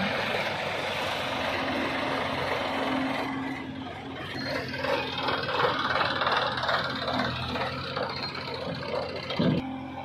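Diesel farm tractor engine running, steady at first, then rougher and uneven from about a third of the way in.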